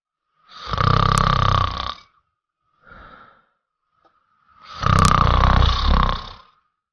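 A person snoring: two loud snores about four seconds apart, each about a second and a half long, with a faint breath between them.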